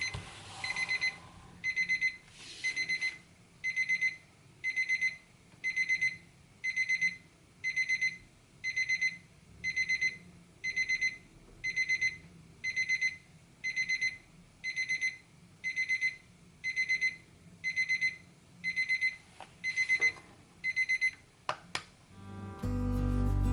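Seiko QHE189 alarm clock's electronic alarm beeping: short groups of rapid high-pitched beeps, repeating about once a second. A few sharp clicks come near the end as the beeping stops.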